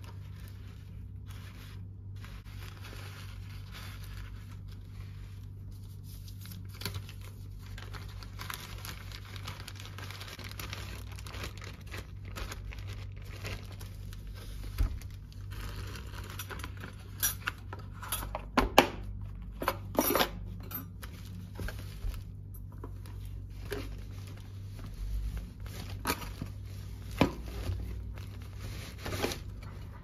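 Paper rustling as it is folded around a toasted sandwich, then a clear IKEA plastic food bag crinkling and crackling sharply as it is opened and handled in the second half.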